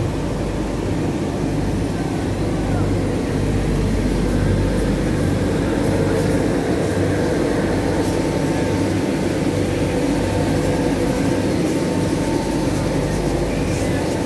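Large roll-fed fabric printing machine running: a steady mechanical drone with a constant hum.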